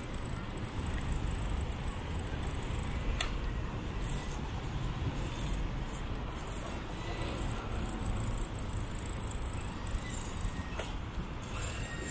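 Steady rumble of wind on the microphone and tyre noise from a bicycle rolling over asphalt, with two faint clicks, about three seconds in and near the end.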